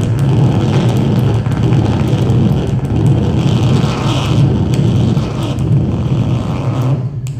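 Electric guitar played through an amplifier as a loud, dense, noisy drone, with a steady low hum underneath and scattered small clicks.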